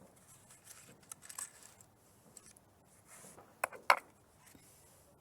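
Quiet rustling and handling noise, with two sharp clicks in quick succession about three and a half seconds in.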